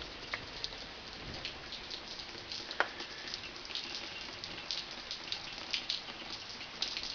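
Steady rain falling, with many scattered drips and taps and one louder tap about three seconds in.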